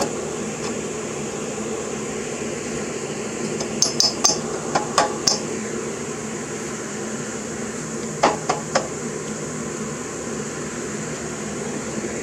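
Light metallic taps and clinks of a steel V-belt pulley being worked onto the small engine's crankshaft. They come in two short bunches, about six near four seconds in and three near eight seconds, over a steady background hum.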